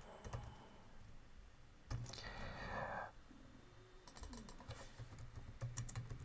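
Faint, irregular keystrokes on a computer keyboard as text is deleted and typed. About two seconds in there is a brief soft hiss lasting about a second.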